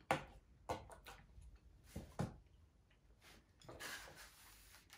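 Eating at a table with wooden chopsticks from a styrofoam takeout box: several light, sharp clicks and knocks, then about a second of noisy mouth sounds near the end as a mouthful of noodles goes in.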